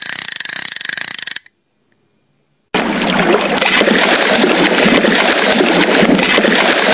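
A loud rushing, splashing water sound effect starts abruptly after a short silence, about three seconds in. It is an even, dense noise with no tune or voice. Before the silence, a noisy stretch cuts off about a second and a half in.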